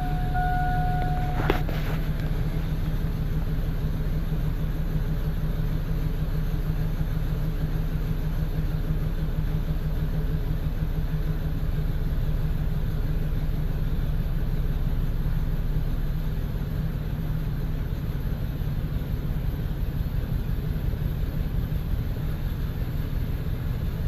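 Chevy pickup V8 engine running steadily, with the scan tool cutting out the fuel injector on cylinder 7, one of two misfiring cylinders. Cutting the injector makes no difference to how it runs, which the mechanic reads as a cylinder that isn't firing at all, possibly for lack of spark. A steady high beep stops with a sharp click about a second and a half in.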